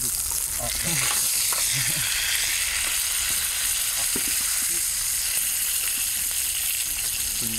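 Beef steak sizzling in a frying pan over a wood fire while it is turned with chopsticks; the sizzle grows louder about a second in.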